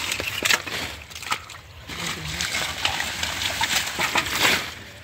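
Mud and water sloshing and splattering as clumps of water hyacinth are pulled up by their roots from a shallow muddy pool, in a run of short wet splashes.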